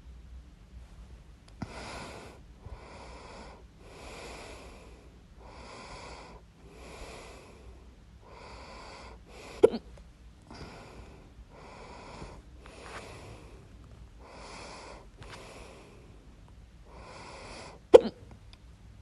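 A person hiccupping loudly twice, once about halfway through and again near the end, with regular breathing in and out about once a second between the hiccups.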